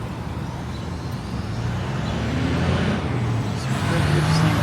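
A motor vehicle's engine running close by, growing louder toward the end.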